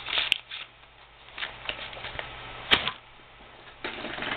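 Handling noises from rummaging in a purse: a few sharp clicks and knocks, the loudest about two and a half seconds in, then rustling as a hand digs through the bag near the end.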